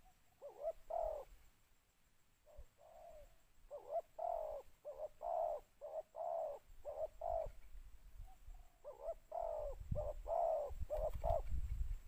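Spotted dove cooing in repeated phrases of several low, rounded notes, with two longer runs of coos in the middle and toward the end. A low rumble comes in under the last phrase.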